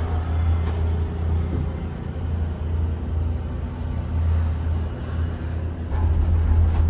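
Steady low rumble and hum inside a Disney Skyliner gondola cabin travelling along its cable, with a few faint ticks.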